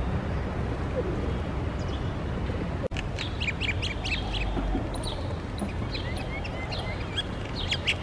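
Small birds chirping: many short, high calls in quick clusters that start about three seconds in, over a steady outdoor background noise.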